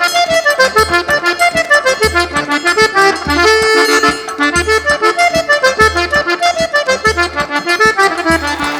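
Sanfona (accordion) playing a lively regional Northeastern Brazilian tune, backed by a zabumba bass drum beating about once a second and the quick strikes of a triangle. The piece ends near the end.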